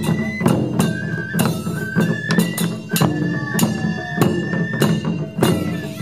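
Japanese taiko ensemble playing: shoulder-slung drums and barrel drums on stands struck in a driving rhythm, under a melody of transverse bamboo flutes (shinobue) holding and stepping between high notes.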